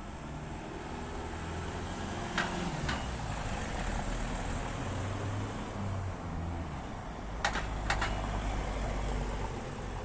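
A convoy of gendarmerie vans and cars driving slowly past, a low engine rumble that swells and eases. Two pairs of short sharp knocks come through, one pair a little over two seconds in and the other about seven and a half seconds in.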